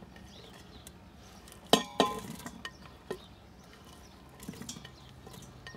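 Plastic chopping board and spatula knocking against the rim of a stainless steel Instant Pot inner pot as chopped vegetables are scraped in. Two loud knocks with a brief metallic ring come just under two seconds in, followed by several lighter taps and scrapes.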